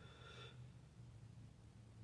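Near silence: a low steady hum of room tone, with a faint short breath in the first half-second as smoke is exhaled.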